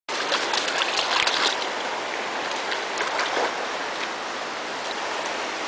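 Shallow stream water running steadily, with a German Shorthaired Pointer puppy's paws splashing in it now and then.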